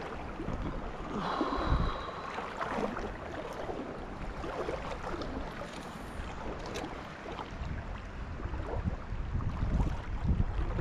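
Stream water running, with wind buffeting the microphone that grows stronger near the end.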